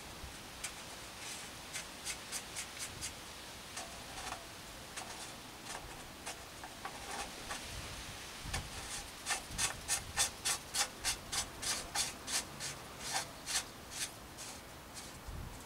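Cartridge bottom bracket cup being screwed by hand into a steel frame's threaded bottom bracket shell: the threads and gloved fingers give scraping, rasping clicks with each turn. The clicks are sparse at first, then come faster and louder, about three a second, in the second half.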